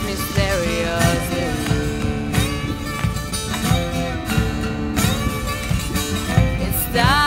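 End-credits theme song: a sung melody over instruments with a steady beat.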